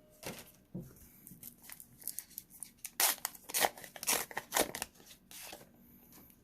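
A small plastic Pokémon card pack wrapper being opened by hand: a run of sharp crinkling rips and snips, loudest between about three and five seconds in.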